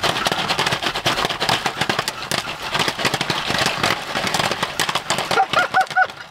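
Popcorn kernels popping rapidly and irregularly inside a foil-domed stovetop popcorn pan being shaken over a butane camp stove. Near the end there is a brief laugh.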